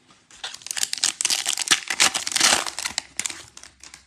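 A 2022 Panini Zenith football card pack's wrapper being torn open and crinkled by hand. It is a dense run of crackling for about three seconds, loudest in the middle, that dies away near the end.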